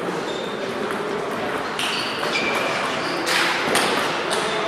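Table tennis balls ticking off bats and tabletops: a run of sharp, irregular clicks in a large hall where several tables are in play, the loudest about three seconds in.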